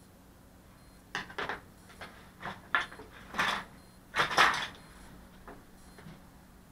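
Small hard objects clattering on a workbench: a quick irregular run of about ten clicks and knocks, the loudest near the end of the run.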